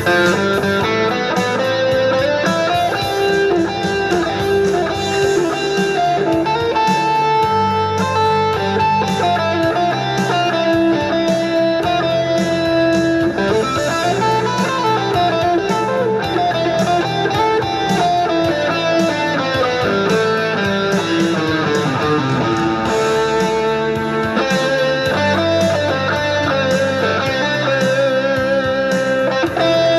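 Telecaster-style electric guitar playing a blues-rock lead line, with sustained notes that bend and slide up and down, over a low bass part.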